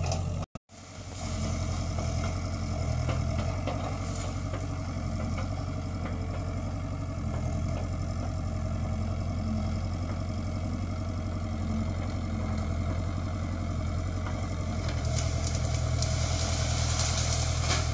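Small excavator's diesel engine running steadily with a low, even drone.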